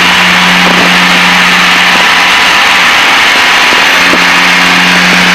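Steady cabin drone of a Piper Seneca's twin piston engines in flight, a constant loud roar with a steady low hum underneath.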